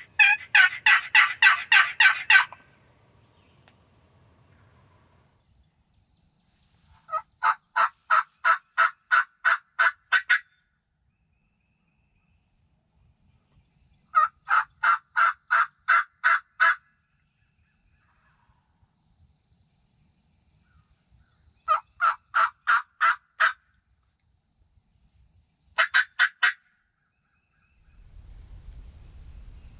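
Turkey yelping: five runs of evenly spaced yelps, about four a second and roughly seven seconds apart. The first run is the loudest and the last is only three yelps. A low rumble comes in near the end.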